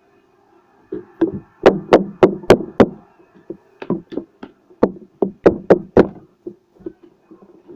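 A hand knocking sharply on something hard, about three strikes a second, in two runs: one from about one to three seconds in and another from about four to six seconds in.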